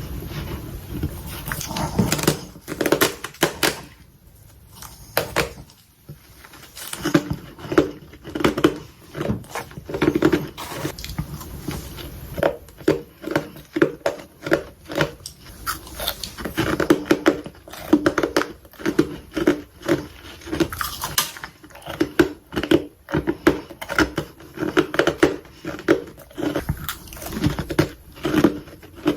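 Freezer frost being bitten and chewed close to the microphone: soft, snowy crunches in quick succession, with a brief lull about four to six seconds in.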